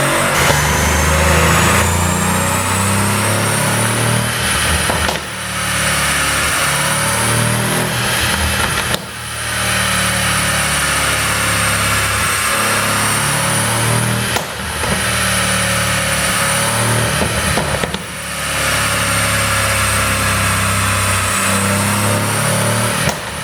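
Mercedes-AMG C63 Cabriolet's 4.0-litre twin-turbo V8 pulling under load through a pop-and-crackle exhaust tune, its note climbing slowly and dropping off briefly four times.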